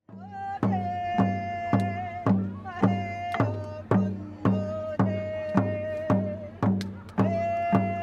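Native American ceremonial drum beaten in a steady beat, a little under two strikes a second. A high, long-held melody line runs over the drumming. Both start suddenly.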